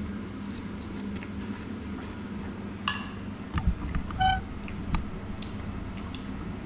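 A metal fork clinking against a ceramic pasta bowl: a sharp ringing clink about three seconds in, another a little past four seconds, and a few softer knocks, over a steady low hum.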